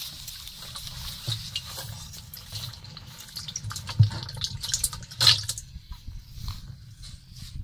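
Live fish and eels thrashing in shallow muddy water in a plastic bucket, with irregular splashes and sloshing and two louder splashes about four and five seconds in.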